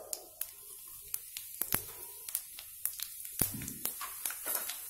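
Mustard and cumin seeds crackling in hot oil in an iron kadhai at the start of a tadka: irregular sharp pops, several a second, over a faint sizzle.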